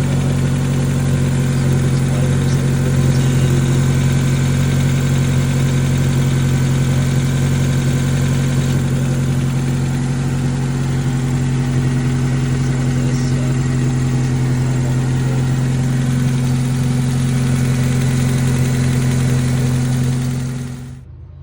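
Honda Civic Si's K20 four-cylinder engine idling steadily at a constant pitch, running with Seafoam treatment in the crankcase to flush deposits before an oil change. The sound cuts off suddenly near the end.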